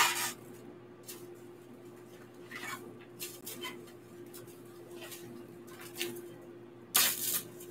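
Plastic cling wrap crinkling and rustling in short, scattered bursts as it is wrapped around a ball of pie dough, with a louder crinkle about seven seconds in, over a faint steady hum.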